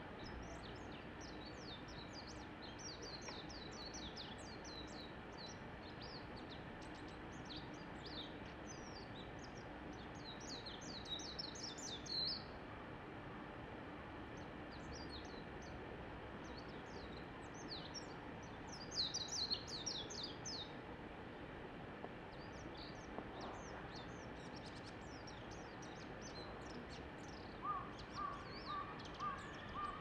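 Japanese white-eye singing: a quick, high-pitched twittering warble in several bursts, loudest about a third of the way in and again about two-thirds in. Near the end a short series of five lower, evenly spaced notes sounds.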